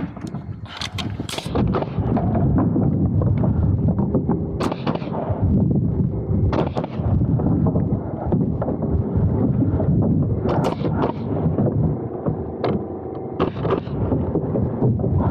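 A loud, continuous low rumble with a few scattered sharp knocks as boots climb and walk over plywood roof sheathing and rafters.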